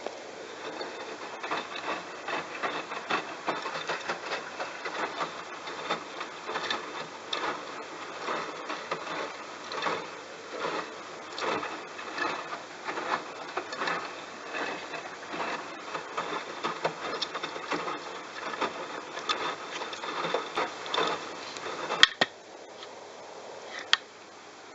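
Bosch washing machine drum turning a load of wet towels during the wash, with a rapid, uneven run of swishes and rubbing. It stops about 22 seconds in with a sharp click, another click follows two seconds later, and a quieter steady hum is left.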